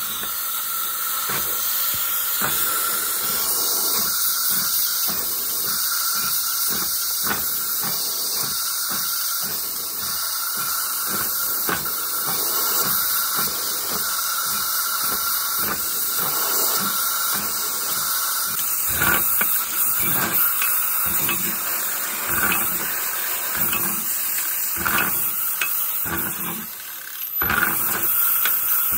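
Power-driven counterbore cutter running in the liner counterbore of a Caterpillar 3406 block, taking the final 10-thousandths cut: a steady hissing machine run with faint, rapidly repeating ticks. It dips briefly near the end, then picks up again.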